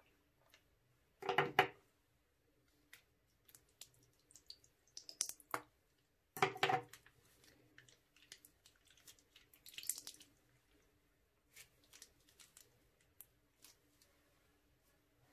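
Slime and plastic piping bags being handled: scattered wet squishes, drips and small clicks, with two louder bursts about a second in and again some five seconds later.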